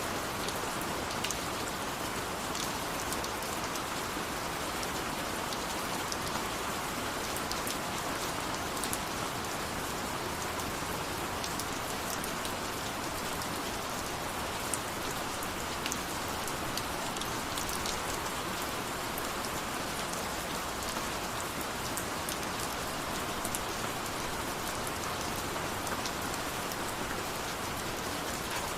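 Steady rain falling, an even hiss with scattered sharper drops ticking on a surface.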